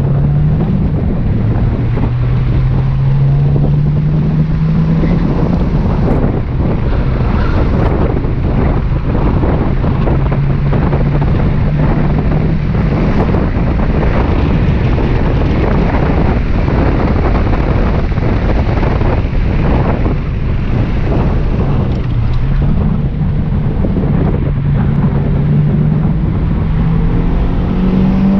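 Subaru WRX's turbocharged flat-four engine pulling hard through a timed autocross run. It climbs in pitch, drops back at shifts or lifts, and climbs again several times, over heavy wind and road noise.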